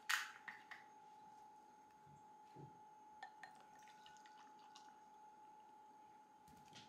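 Plastic juice bottle's cap twisted open with a sharp click, then orange juice poured faintly into a glass, with a few light clicks of bottle and glass. A steady faint hum sounds underneath.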